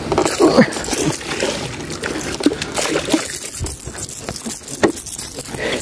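Water splashing and sloshing in irregular bursts as a hooked fish thrashes at the surface while being reeled in beside the boat.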